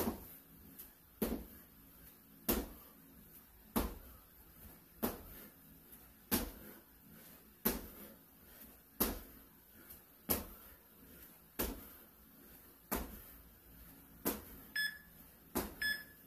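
Feet landing on a hard floor during repeated jumping slams, one thud about every 1.3 seconds. Near the end, two short electronic beeps about a second apart: the interval timer counting down to the rest.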